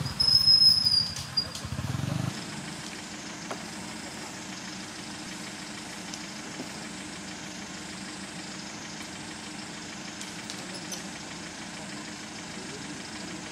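A motor vehicle's engine running, cutting off about two seconds in, with a brief high-pitched tone near the start; after that a steady faint hum.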